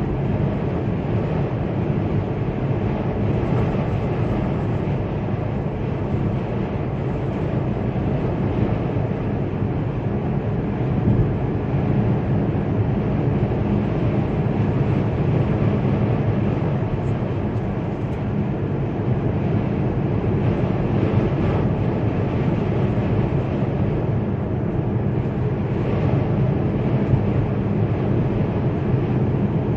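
Steady low rumble inside a car driving through a snowstorm: road, engine and wind noise with no breaks.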